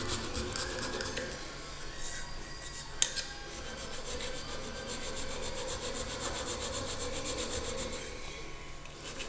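Mill file rasping over silicon bronze weld beads to take the lumps down, steady scraping strokes on metal. There is one sharp click about three seconds in.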